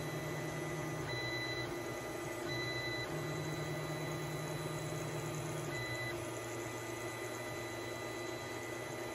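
Creality 3D printer running a print: its stepper motors hum at pitches that change in steps as the print head moves, over the steady hiss of its cooling fans. Brief high whines come and go a few times.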